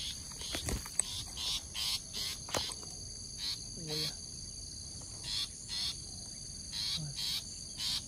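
Long-tailed shrike giving repeated short, harsh scolding calls, the alarm of a parent bird with young in the nest. A steady high chirring of insects runs underneath.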